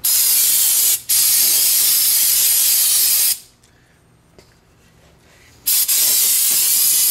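Aerosol brake cleaner spraying into a brake drum to wash out the brake dust, in three hissing bursts: a short one, a longer one of about two seconds, then a pause of a couple of seconds before a third spray starts near the end.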